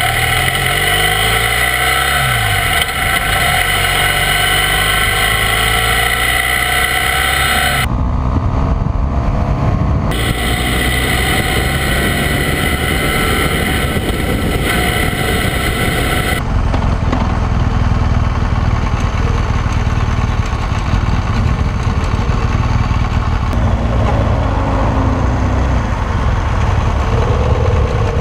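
BMW motorcycle engine running while riding, with wind and road noise; the engine pitch sweeps up and down in the first few seconds. The sound changes abruptly about eight and again about sixteen seconds in.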